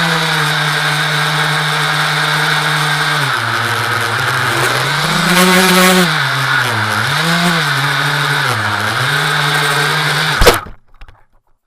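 Brushless motors and propellers of a 5-inch quadcopter whining, the pitch dipping and rising several times with the throttle. About ten and a half seconds in comes one loud impact as the quad crashes, and the sound cuts off.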